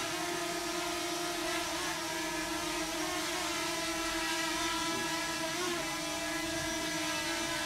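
K911 quadcopter drone's propellers whirring steadily as it hovers, the pitch wavering slightly a few times.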